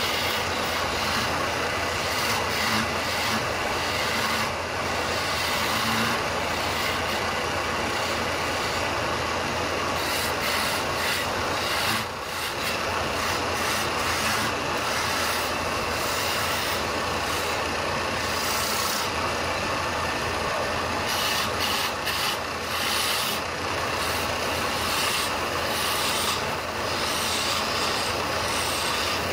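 Electric wood lathe running while a hand-held turning chisel cuts a spinning wooden baluster blank: a steady motor hum under a continuous scraping hiss of wood being shaved. The cutting eases briefly about twelve seconds in.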